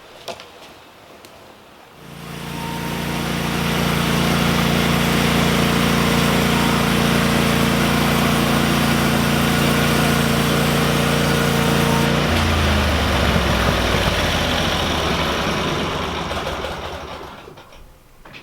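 Power planer running on a cedar log, planing a flat face: it starts about two seconds in and runs steadily for about ten seconds. Then its pitch drops and it winds down over several seconds as it is switched off.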